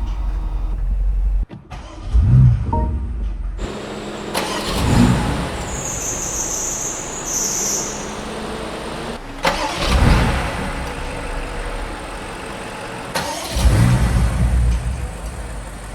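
BMW X6 M Competition's twin-turbo 4.4-litre V8 being revved in short bursts, about four swells, with abrupt cuts between takes.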